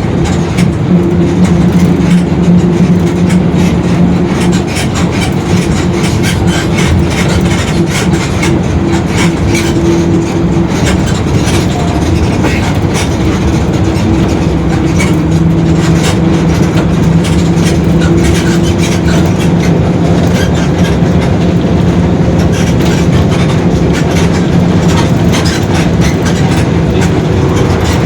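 Mercedes-Benz OF-1721 city bus under way: the four-cylinder diesel running steadily with many small rattles, and a held low drone from the rear differential, the droning the bus is known for.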